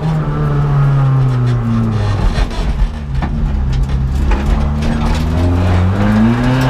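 Seat Ibiza TDI rally car's turbodiesel engine heard from inside the cabin: revs fall steadily off the throttle for about four seconds, then climb again as it accelerates.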